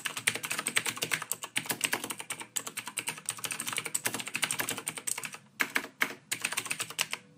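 Keyboard typing sound effect: rapid key clicks that stop briefly a few times, matching text being typed out on screen.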